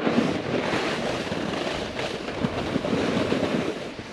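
Snowboard scraping and hissing through slushy spring snow while riding downhill, with wind rushing over the microphone.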